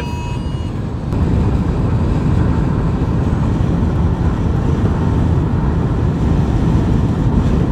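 Steady road and wind noise heard inside a moving car: a low rumble that grows louder about a second in. A brief electronic tone ends just at the start.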